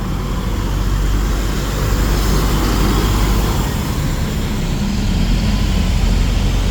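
Tour bus engine running close by, a deep steady rumble that grows a little louder about two seconds in.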